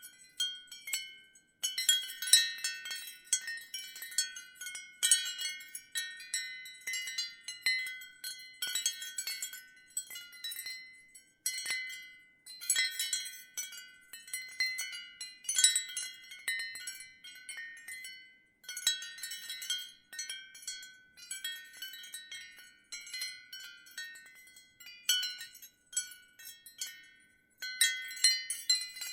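Ceramic wind chimes clinking, in bursts of overlapping high, ringing strikes at several pitches, with brief lulls between gusts.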